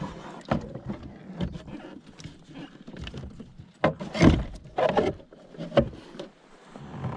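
Irregular knocks and clunks in a kayak, with the loudest thump a little past four seconds in.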